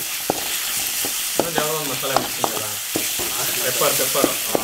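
Chopped onions, green chillies and spice masala sizzling in hot oil in a metal kadai, while a steel ladle stirs and scrapes around the pan with repeated clinks.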